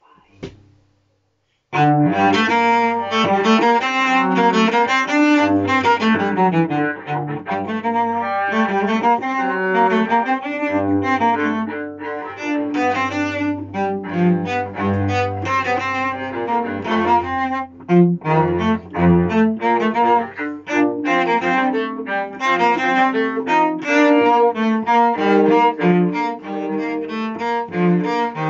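Cello playing a fast Baroque continuo bass line in G minor, starting about two seconds in after a brief click, with quick moving notes over sustained low ones.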